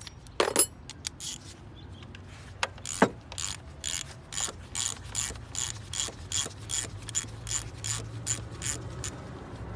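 A hand ratchet clicking as it backs out a bolt on the oil filter housing of a BMW N54 engine, at a steady rate of about three clicks a second. A couple of sharper knocks come before the clicking settles in.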